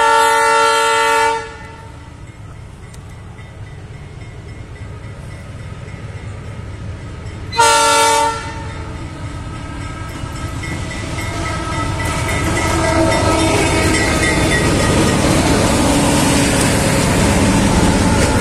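Lead locomotive of a loaded freight train, an SF30BB diesel, sounding its multi-tone air horn twice for the level crossing: a long blast of about a second and a half, then a short one about eight seconds in. The rumble of diesel engines and rolling wagons then grows steadily louder as the locomotives pass close by.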